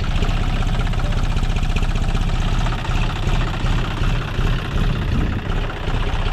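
John Deere tractor's three-cylinder diesel engine idling steadily.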